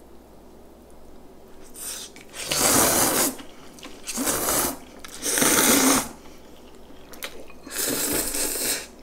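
Cold spicy bibim-myeon noodles being slurped: four loud, airy slurps of under a second each, with a fainter one just before the first, starting a couple of seconds in.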